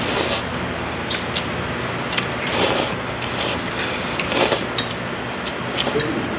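Noodles being slurped from a bowl in several short, noisy slurps a second or so apart.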